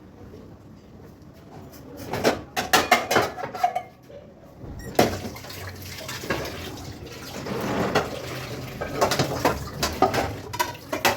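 Dishes and utensils clattering at a kitchen sink in a quick run of knocks, then water running from the tap about halfway through, with more clinks of dishes over it.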